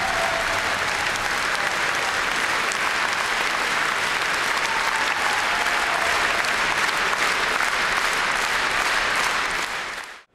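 Large hall audience giving a standing ovation: dense, steady applause that fades away quickly at the very end.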